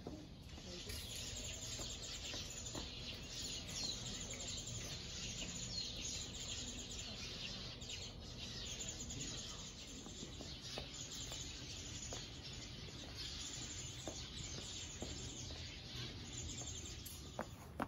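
Many small birds chirping and chattering at once, a dense overlapping twitter with no single song standing out, with a few faint light taps underneath.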